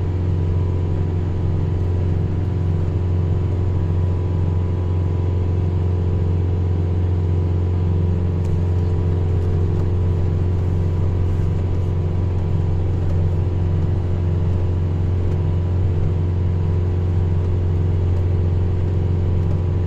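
A vehicle's engine running steadily while driving slowly, heard from inside the cab as an even, low drone that does not change.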